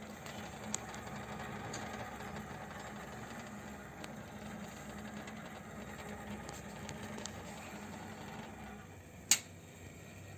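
Thermalright True Spirit 120M CPU cooler fan running with a steady mechanical hum, the noise reported as a problem. The hum drops away near the end, followed by a single sharp click.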